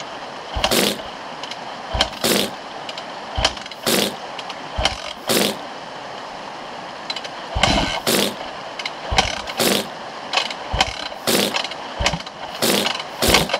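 Dirt bike being kick-started over and over, about a dozen short bursts of the engine turning over or coughing roughly once a second without settling into a run, over the steady rush of a shallow stream.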